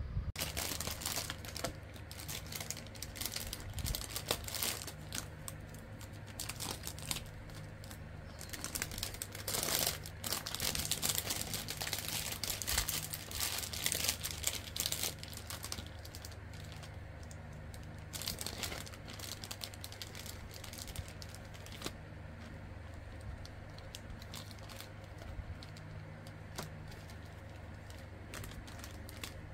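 Crinkling plastic and paper wrappers of a COVID-19 antigen rapid test kit being handled and opened, busiest in the first half and sparser near the end, over a steady low hum.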